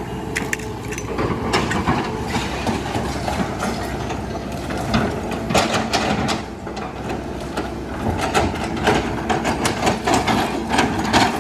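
Hitachi hydraulic excavator's diesel engine running steadily under many sharp cracks, crunches and knocks of a house being broken up.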